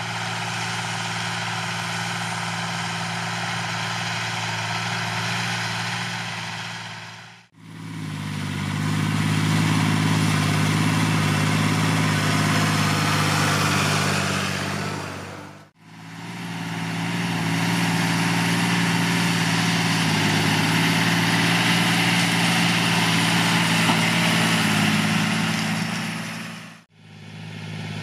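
John Deere 8100 tractor's six-cylinder diesel running steadily, working a stubble-cultivation implement in the field. The sound comes in three stretches separated by brief fades, and the later two are louder.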